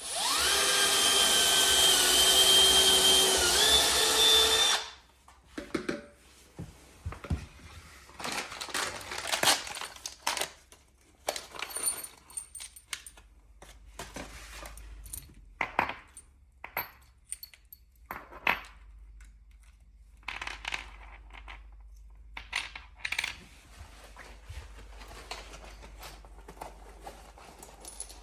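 Power drill running for about five seconds, its pitch dipping and then rising slightly as the load changes, then stopping; scattered knocks and clicks follow.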